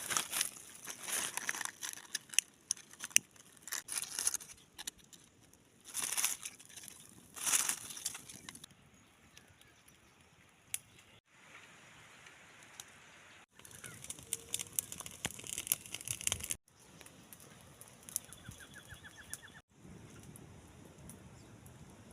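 Dry leaves and twigs rustling and crackling in irregular bursts, cut off abruptly several times. A small bird gives a short rapid trill near the end.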